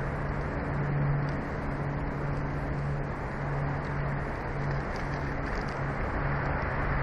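Steady wind rushing over an outdoor microphone, with a low hum that comes and goes every second or so.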